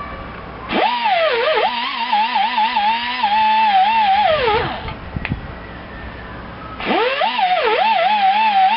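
Small handheld electric power tool running in two runs of about four seconds each, its whine wavering in pitch as it is pressed on and lifted and dropping as it winds down at the end of the first run. It is cleaning the tops of the ignition coil's contact faces so the coil makes a good connection.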